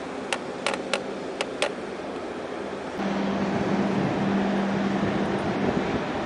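Steady low drone of ship engines over a wash of wind and water noise, stepping louder about halfway through. Five sharp clicks come in the first two seconds.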